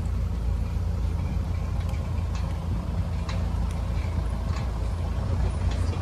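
Maruti Gypsy safari jeep driving along a forest track, its engine running with a steady low drone, and a few light knocks from the vehicle along the way.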